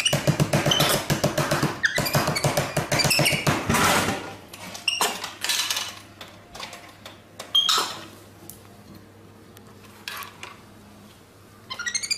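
Capuchin monkey squeaking, with rapid clattering as it slaps a vending machine's buttons for about four seconds. Then a few scattered knocks as it reaches into the machine's delivery slot, and high chirping calls near the end.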